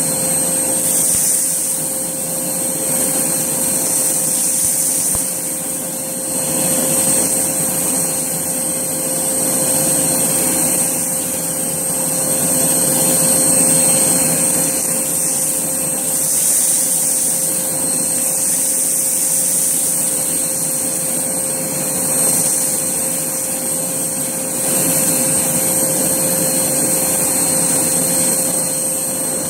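Hoover Blaze canister vacuum cleaner running steadily with a motor whine while it sucks up a dry crunchy mess from a floor. Its hiss swells and fades every few seconds as the head is pushed back and forth.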